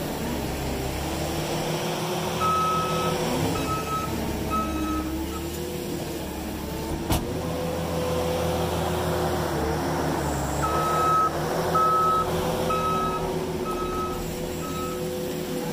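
New Holland 327 skid steer's engine running and changing pitch as it works, with its reverse alarm beeping in two runs while it backs up. There is one sharp click about halfway through.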